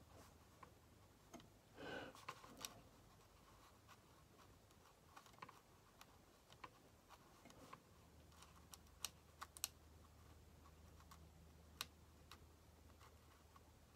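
Near silence with a low steady hum, broken by faint, irregular small clicks and ticks from a watercolor brush being worked on paper, and a short soft rustle about two seconds in.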